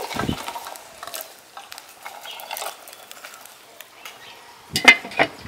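Cooked chickpeas tipped into a pan of tomato broth with meatballs: a soft splash at the start, then small scattered ticks. A few sharp clicks near the end are the loudest sounds.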